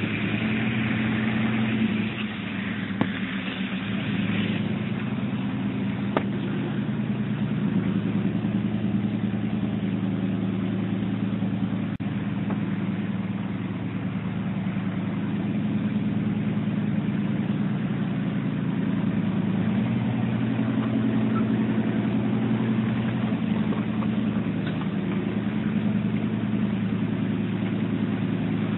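Chevrolet pickup truck's engine running, heard from inside the cab, its speed stepping up and down a little every few seconds.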